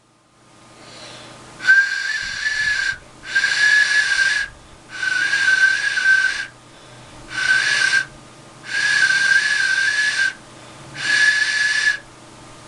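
Freshly moulded clay duck whistle blown six times, each a breathy note of about a second at one steady high pitch with a slight wobble. Its whistle has gone bad, which the maker puts down to too many holes pierced in the body.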